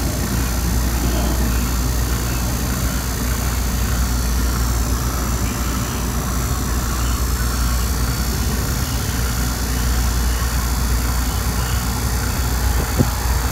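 A 3 CFM refrigeration vacuum pump running steadily, pulling an air-conditioning system down into deep vacuum around 2,000 microns and falling. A single faint click near the end.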